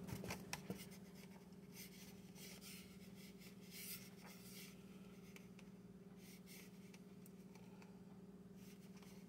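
Near silence: faint rustling of paper as the pages of a hardcover book are leafed through, over a steady low hum.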